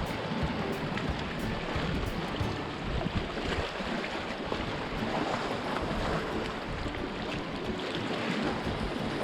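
Sea waves washing against a rocky shore, with wind buffeting the microphone; a steady, even rush.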